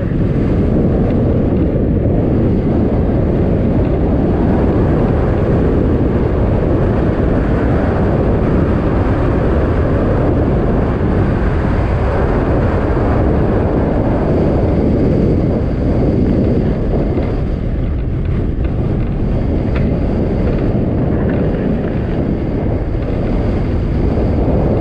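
Wind rushing over the microphone of a mountain bike's action camera during a fast descent, with the tyres rolling on cracked pavement: a loud, steady, deep rush.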